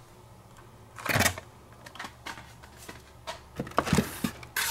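Carded Hot Wheels cars in plastic blister packs being handled and pulled from a cardboard case: a rustle about a second in, then a run of light clicks and scrapes of card and plastic, and a louder rustle near the end.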